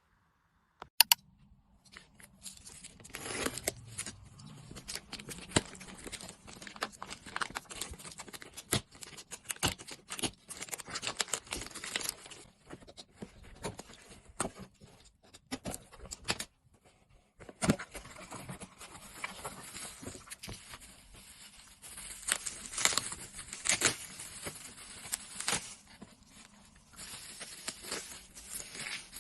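Packaging being torn open and handled: a sharp click about a second in, then crackling tearing and crinkling of wrapping with many small snaps, pausing now and then.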